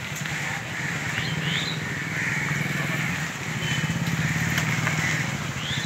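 A motor vehicle engine running close by, a steady low hum that grows louder through the middle and eases off near the end. Crows cawing and a few short bird chirps sound over it.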